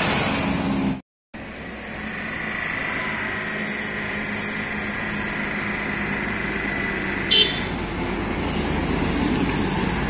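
Road traffic at a bend, the sound cutting out abruptly about a second in; then a Hino concrete mixer truck's diesel engine running as it climbs toward and past, growing louder, with one short sharp hiss or toot about seven seconds in.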